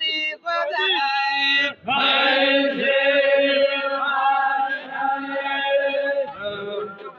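Baloch chogan devotional singing by men: a lead voice sings a short phrase, then from about two seconds in a group of male voices joins in one sustained, steady chant.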